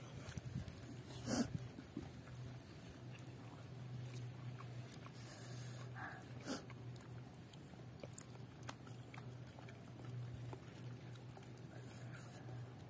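Faint mouth sounds of eating spicy chicken feet by hand: chewing and sucking, with a few short, sharper noises about a second in and again around the middle, over a low steady hum.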